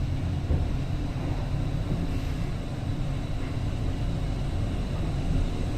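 Schindler 3300 passenger lift car travelling in its shaft: a steady low rumble and hum of the ride.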